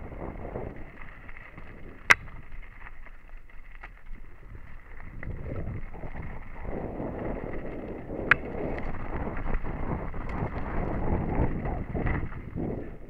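Mountain bike descending a dry dirt singletrack, heard from a helmet camera: tyres rolling over dirt and the bike rattling, with rumble that swells and fades over the bumps. Two sharp clacks stand out, about two seconds in and about eight seconds in.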